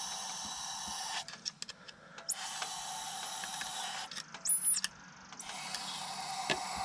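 Aerosol spray can hissing as it sprays through a straw nozzle into a boat engine's carburetor throat. The hiss comes in three spells with short breaks between them.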